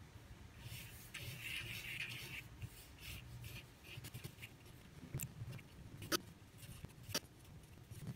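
Mechanical pencil scratching across paper in quick, loose sketching strokes, strongest in the first couple of seconds. In the second half come three sharp ticks about a second apart.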